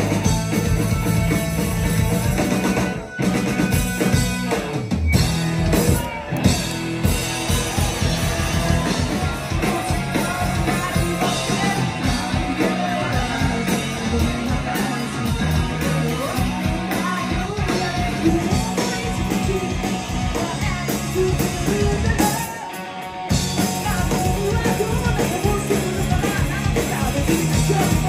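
Live punk rock band playing in a small club, heard from the crowd: electric guitars, bass and a drum kit with a singing voice. The band drops out briefly about three quarters of the way through, then comes back in.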